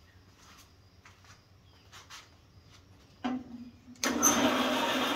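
Delta bandsaw switched on: a steady low hum starts a little over three seconds in. About a second later it gives way to the loud, steady running noise of the motor and blade. Before that there are only faint small clicks and rustles.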